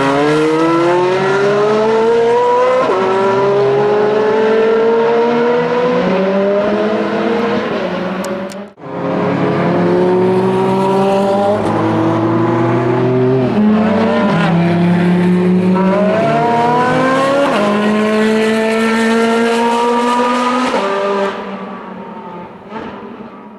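Ferrari 430 Scuderia's 4.3-litre flat-plane V8 with a straight-pipe exhaust, accelerating hard through the gears. The pitch climbs with each pull and drops back at every upshift. It breaks off abruptly a little before halfway, picks up for another run of upshifts, and fades away as the car goes off into the distance near the end.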